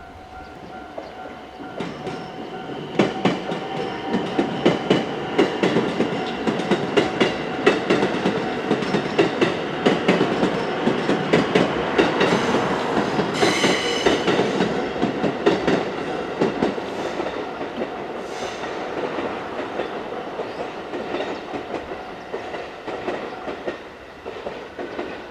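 A JR West 223 series electric train passing over a level crossing, its wheels clacking steadily over the rail joints. The sound swells from about two seconds in and fades away near the end. The crossing's warning bell rings at the start, is drowned out by the train, and comes back faintly near the end.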